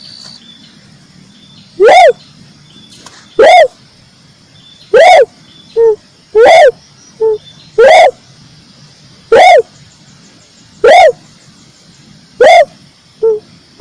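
Recorded dove coos (tekukur merah) played as a lure call. Loud single notes that each rise and fall in pitch repeat about every one and a half seconds, with shorter, lower notes between some of them. The recording is very loud and clipped.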